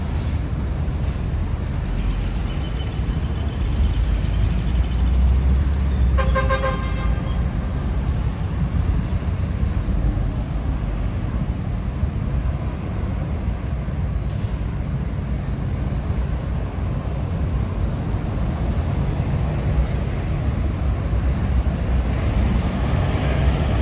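Steady rumble of city traffic, cars and buses, from a busy avenue. A vehicle horn sounds once for about a second, about six seconds in.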